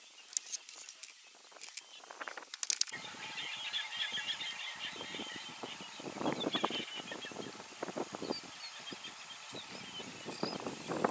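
Bush ambience: birds chirping and a steady high-pitched whine, with irregular rustling and crackling that starts about three seconds in.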